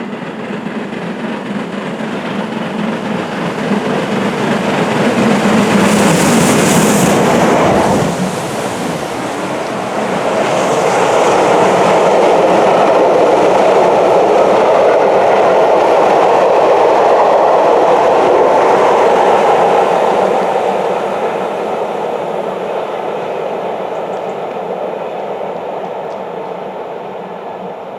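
Jubilee class 45699 Galatea, a three-cylinder steam locomotive, working hard at speed with its train as it passes, with exhaust and wheels clattering over the rail joints. The sound builds to a loud peak, dips briefly, stays loud for several more seconds as the train rolls by, then fades over the last several seconds.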